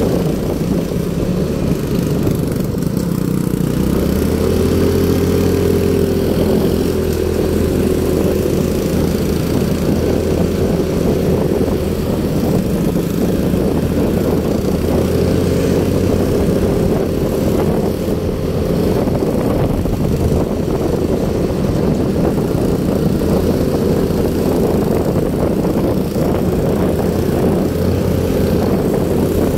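Motorcycle engine running steadily under way, over a constant rush of wind and road noise. The engine note shifts up and down slightly a few times.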